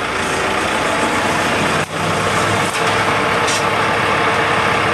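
Diesel engine of a John Deere excavator running steadily while the machine works its arm and bucket.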